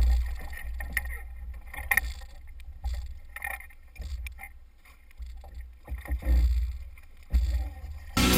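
Uneven low rumble of wind buffeting a kayak-mounted camera's microphone, with scattered knocks and water sounds from the kayak and gear as a fish is brought up in a landing net. Rock music with guitar comes in near the end.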